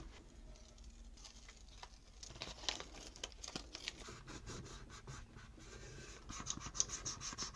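Faint scratching, rustling and light ticking of fingers handling double-sided adhesive tape and its printed liner against a painted metal socket case. About six seconds in it turns into a steadier rubbing as the tape is pressed down to make the pressure-sensitive adhesive bond.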